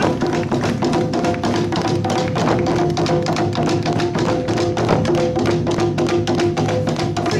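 Awa odori festival music: small rope-tensioned drums beaten fast with sticks in a dense, driving rhythm, over steady held melody notes.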